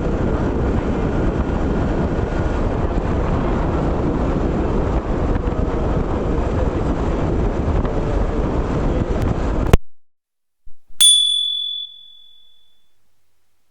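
Riding noise of a moving Yamaha FZ-X motorcycle picked up by a GoPro 10's built-in microphone: wind buffeting and road and engine noise. It cuts off abruptly about ten seconds in. About a second later comes a single sharp, bell-like ding that rings out and fades over about two seconds.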